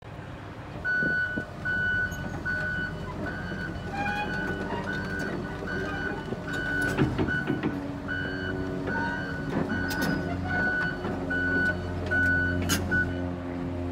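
Hitachi ZX350H-3 hydraulic excavator running, its diesel engine humming under a steady high-pitched warning beeper that sounds about twice a second and stops near the end. A few sharp knocks come from the machine along the way.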